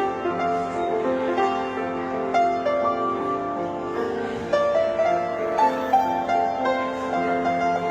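Piano playing a slow, song-like melody over held chords.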